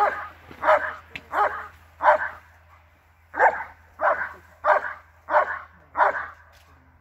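German Shepherd barking in an even rhythm, roughly three barks every two seconds, with a pause of about a second a little past two seconds in: the steady guarding bark at the helper in IGP protection work.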